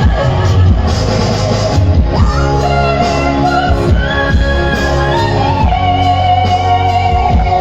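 Music: a Batak song played with guitar and bass, with a long note held steady through the second half.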